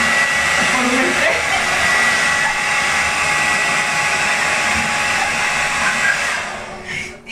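Hand-held hair dryer blowing steadily with a steady high whine, then switched off near the end, its sound dying away.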